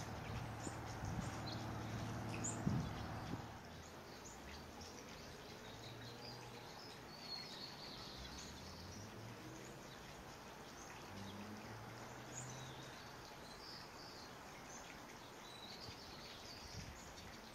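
Faint, high, scattered twittering chirps of a lesser goldfinch over a low background rumble, which is louder for the first few seconds and then drops away.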